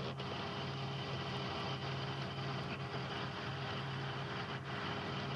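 A vehicle engine idling steadily under a constant hiss, with a couple of faint ticks.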